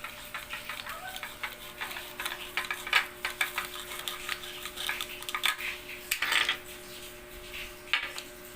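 Small plastic toys clicking and clattering as they are picked up, set down and knocked together, in quick irregular taps.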